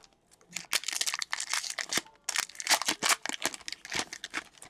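Hockey card pack wrapper being torn open and crinkled by hand: a run of irregular crackles and rustles.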